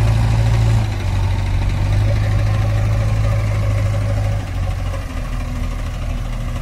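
Heavy diesel engine running steadily, its low note dropping slightly about four and a half seconds in.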